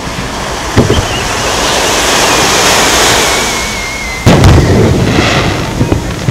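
A firework shell whistling as it climbs, a thin whistle slowly falling in pitch, then a loud boom as it bursts about four seconds in, followed by a brief crackle. A dull thud comes about a second in and a smaller one near the end, over the wash of surf on the shore.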